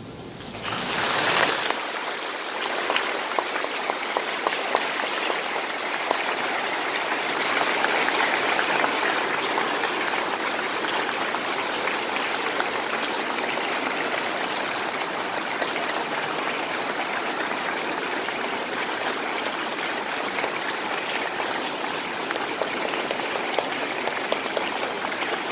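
Large audience applauding, a dense continuous clapping that swells in about a second in and keeps up at an even level.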